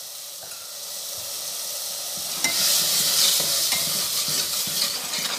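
Tomato-onion masala sizzling in ghee in a pressure-cooker pot while a steel ladle stirs and scrapes the freshly added ground spices into it. The sizzle grows louder about two and a half seconds in.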